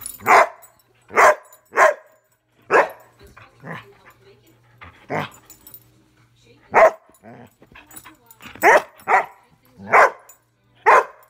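Airedale terrier barking in play: about ten short, loud barks at uneven spacing, with a pause of over a second near the middle.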